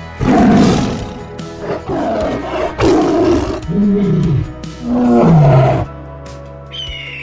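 A big cat roaring: a series of about five loud roars over several seconds, heard over background music.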